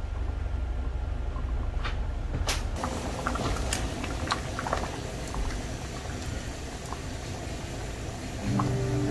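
Tripe soup bubbling at a simmer in a frying pan over a low steady rumble. From about three seconds in, a ladle stirs and scoops through the soup with scattered light clicks against the pan.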